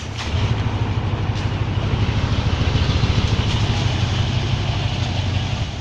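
Diesel engine of a Hino Ranger concrete mixer truck running with a low, steady throb. It grows louder shortly after the start and eases off near the end.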